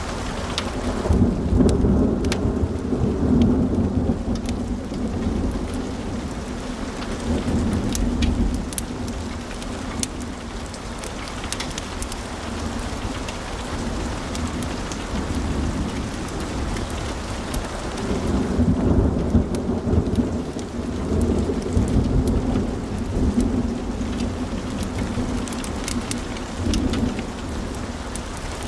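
Wood fire in a fireplace crackling, with many scattered sharp pops over a low rumble of burning logs. The rumble swells twice, about a second in and again about two-thirds of the way through.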